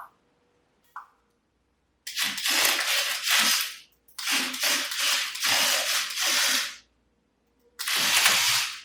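Remote-controlled toy JCB backhoe's small electric motors and plastic gears running in three separate bursts, each starting and stopping abruptly, about two, three and one seconds long.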